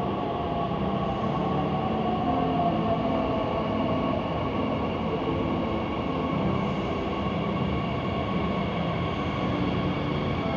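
Bombardier Talent 2 S-Bahn electric multiple unit arriving at an underground platform: a steady rumble echoing off the station walls, with a faint whine that falls in pitch over the first few seconds as the train slows.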